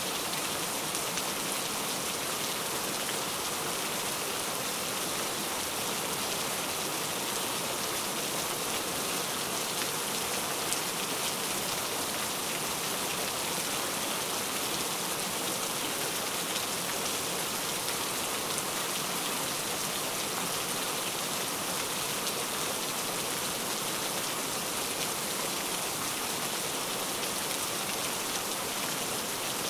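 Steady rainfall: an even, unbroken hiss of rain with no changes or breaks.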